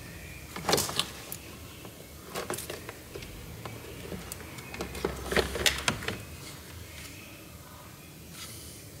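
Irregular plastic clicks and taps as switches are worked loose from the underside of a door's power-window switch bezel: a few near the start, a busier cluster about halfway through, and a faint scrape near the end.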